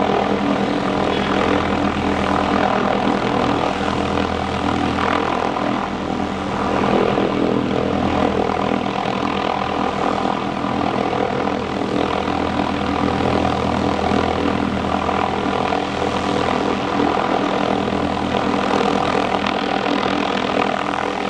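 Hughes 500D helicopter's turbine and five-blade main rotor running steadily at close range, a loud, continuous drone of layered steady tones that swells a little about seven seconds in.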